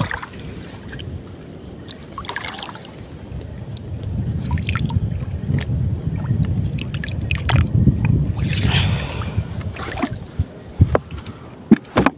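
Shallow seawater sloshing and splashing as a hand reaches in among seagrass to pick up spider conch shells. Near the end come a few sharp clicks as the shells are dropped into a metal basin of conchs.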